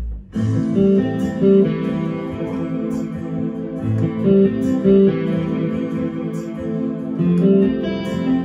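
Korg Pa700 arranger keyboard playing a song intro in a guitar-like plucked voice, with sustained chords and a light percussion rhythm of high ticks.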